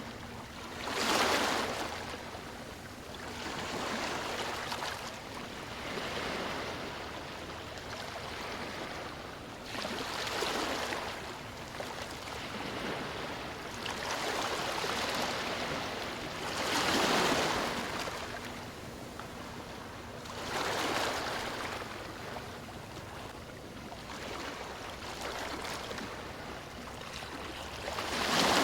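Sea waves breaking on a beach: a steady wash of surf with repeated swells every few seconds, each rising and falling away, the strongest a second in, at about seventeen seconds and at the very end.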